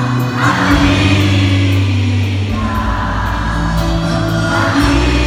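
Live pop band playing a song on a concert stage, with singing in long, held notes over it.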